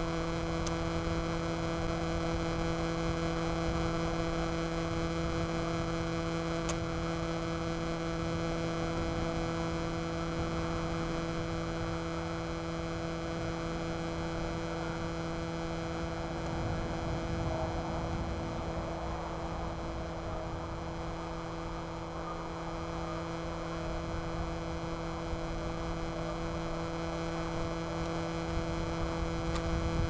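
A steady hum of several even, unchanging tones, with a faint low rumble beneath it.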